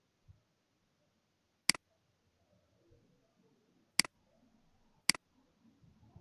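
Computer mouse clicking three times, sharp and separate, the second about two seconds after the first and the third about a second later, over faint room noise.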